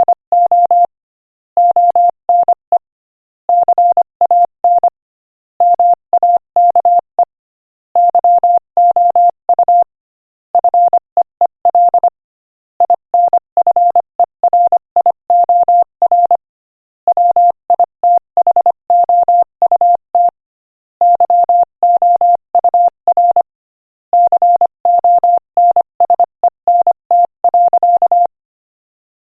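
Morse code sent at 25 words per minute: a single pure tone keyed on and off in rapid dots and dashes, in word groups separated by short silent gaps.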